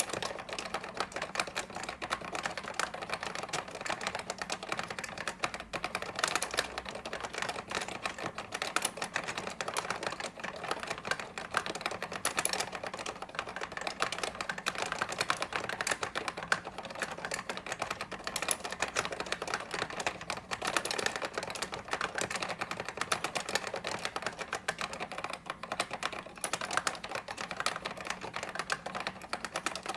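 Continuous fast typing on a Zbrojovka Brno Consul 262.12 keyboard with Tesla Hall effect linear switches: a dense, steady stream of key clacks. The switches are unlubricated.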